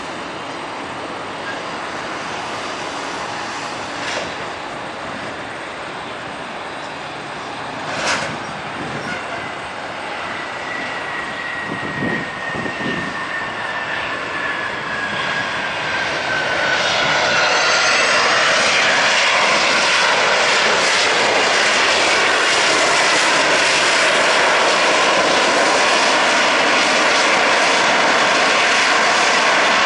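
Embraer ERJ-145 regional jet's Rolls-Royce AE 3007 turbofans: a distant jet whine with a high tone slowly falling in pitch as the landed jet slows, then, about halfway through, a much louder close-up rush and whine of an ERJ-145 taxiing past.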